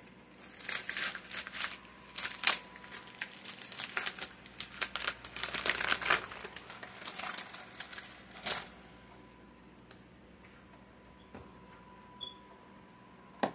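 Plastic wrapping of a kielbasa sausage pack crinkling and rustling as it is handled, in irregular bursts for about eight seconds, then it mostly stops, leaving a few faint clicks.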